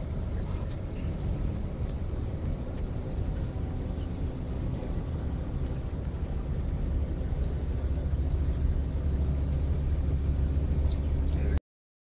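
Steady road and engine noise heard from inside a car moving at highway speed, a low rumble that grows louder about seven seconds in. The sound cuts off abruptly near the end.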